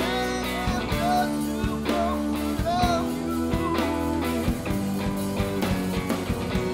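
Live rock band playing: a man sings lead into a microphone over electric guitar and bass, with a steady beat.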